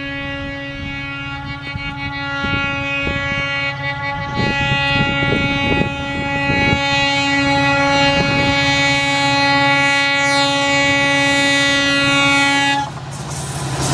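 WAP-7 electric locomotive's horn held in one long steady blast, growing louder as the express approaches at speed, and cutting off suddenly near the end. Thuds and rumble of the train run under it, and the rush of the passing train follows the cut-off.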